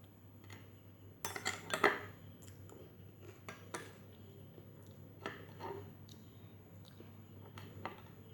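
Cutlery clinking and scraping against a dish. A quick, loud cluster of clinks comes about a second in, followed by a few scattered single clinks.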